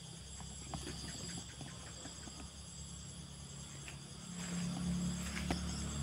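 Night insects trilling steadily, a fine high pulsing chorus, over a low hum that grows louder about four seconds in.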